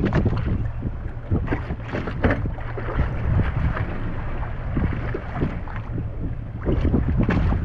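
Wind buffeting the microphone over a steady low rumble, with irregular splashes of choppy water against the side of a small fishing boat.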